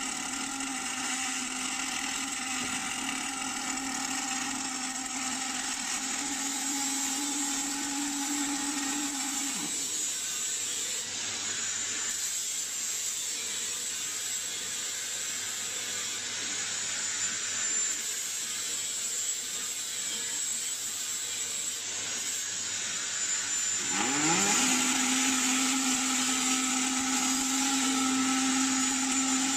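Automatic circular seam welding machine for gas cylinders running: a steady hum over constant hiss while it welds. About ten seconds in the hum winds down and stops, leaving only the hiss; about 24 seconds in it winds back up to the same pitch as the next weld begins, a little louder than before.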